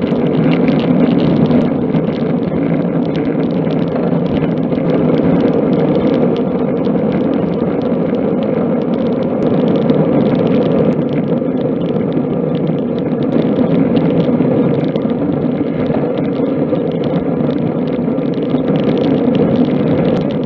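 Steady rush of wind and tyre-on-tarmac noise on the microphone of a camera carried on a moving road bike, with a few faint sharp clicks.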